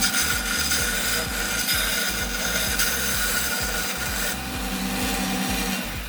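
Combined belt and disc bench sander running, a piece of wood pressed against the vertical belt and sanded with a steady rasp over the motor's tone. It stops shortly before the end.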